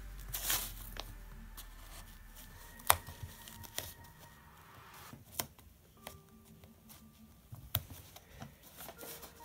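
Faint crinkling and rubbing of masking tape being pressed and smoothed onto a sneaker by hand, with a few short sharp ticks from handling the tape and shoe.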